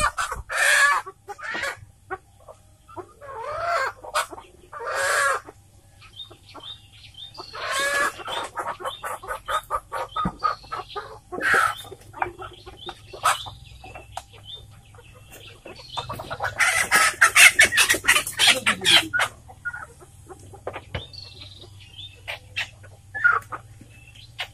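Village chickens squawking and clucking in alarm as they are caught and carried upside down by the legs. A dense spell of rapid squawks and wing flapping comes about two-thirds of the way through.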